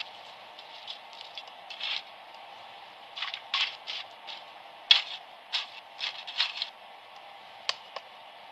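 Scattered short knocks and scrapes coming at irregular intervals, the sharpest about five seconds in, over a steady hiss.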